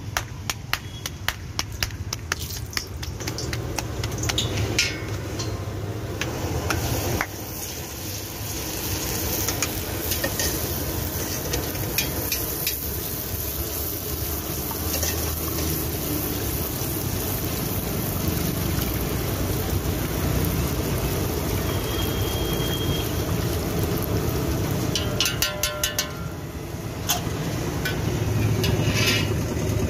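Bhatura deep-frying in hot oil in a steel kadai, a steady sizzle, with scattered clicks and clinks of the metal utensils, clustered near the start and again near the end.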